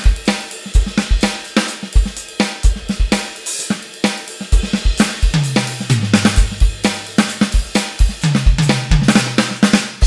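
Roland TD-25K electronic drum kit played through its "Studio" kit preset: a steady groove of kick, snare, hi-hat and cymbals. A little past halfway, and again near the end, tom fills step down in pitch.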